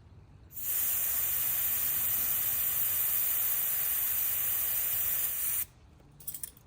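Air hissing steadily out of a Jeep tire's valve stem for about five seconds as the tire is let down, then cutting off sharply; a few faint clicks follow near the end.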